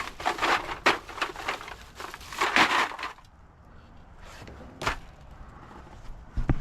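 Crunching and rattling of objects being handled, loudest in the first three seconds, followed by a single sharp knock and a few clicks.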